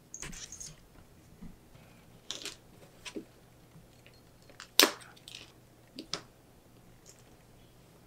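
Hand-stitching a leather strap with needle and thread: scattered short rustles and scrapes as the thread is drawn through the leather and the strap is handled, with one sharper, louder click about halfway through.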